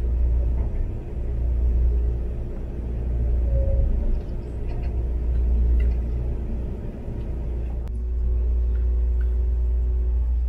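Steady low rumble of a Kintetsu Hinotori (80000 series) electric limited express train running at speed, heard from inside the passenger cabin.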